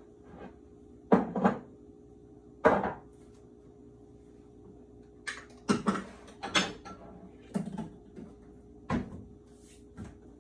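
Kitchen cupboard sounds: dishes and containers knocked and clattered as they are moved on the shelves. There are about eight sharp knocks, the loudest about a second in and near three seconds, over a faint steady hum.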